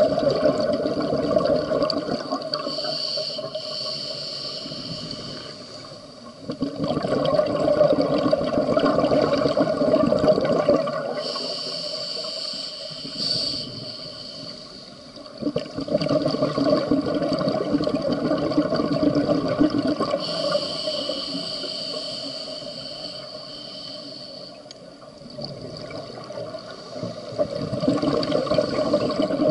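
Scuba diver breathing through a regulator underwater: a rushing, bubbling exhale alternates with a thinner, higher hiss on each inhale, about three slow breath cycles.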